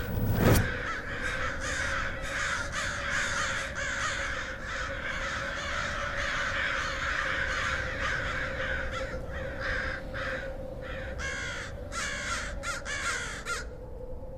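A flock of birds calling, many harsh calls overlapping densely, over a steady low hum. The calls stop abruptly near the end. A short thump comes at the very start.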